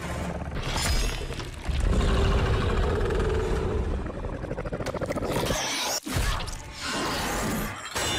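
Movie fight-scene soundtrack: loud crashing, shattering sound effects with music underneath, with an abrupt brief drop about six seconds in.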